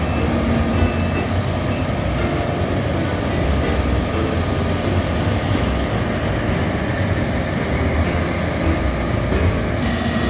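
Combine harvester engine running steadily during rice harvesting.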